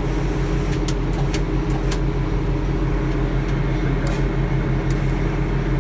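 Sawmill's engine running steadily at an even speed, with a few light clicks in the first couple of seconds and once more about four seconds in.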